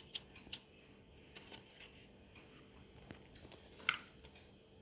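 Faint kitchen handling sounds as ingredients go into a mixing bowl: a few light ticks of a spoon and container, and one clearer clink of metal on a dish about four seconds in.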